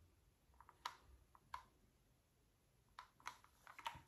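Near silence, broken by a few faint, sharp clicks and light taps, with several in quick succession near the end.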